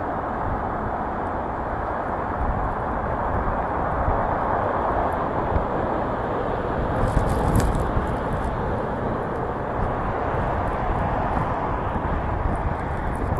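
Strong wind and a car driving on snowy streets: a steady rushing noise.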